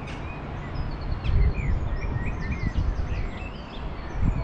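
Wild birds chirping, many short quick calls throughout, over a steady low rumble of wind buffeting the microphone, which is the loudest sound.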